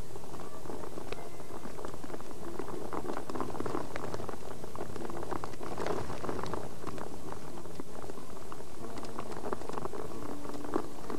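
Rain pattering close to the microphone: a steady, dense crackle of small drops with no break.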